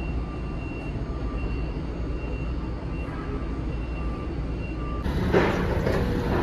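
Steady low rumble of warehouse machinery with faint, evenly spaced beeping. About five seconds in it gives way to louder noise of a forklift working close by, swelling twice.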